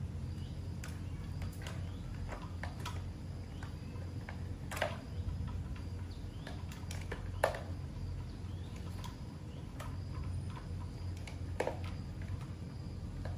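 Scattered light clicks and taps, with three sharper clicks spread through, over a low steady hum.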